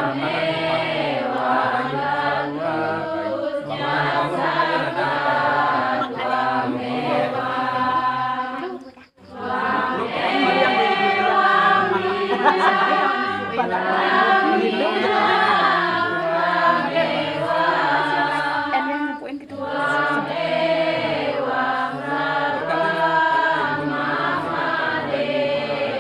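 Voices singing a chant-like melody without pause, except for a sudden brief break about nine seconds in.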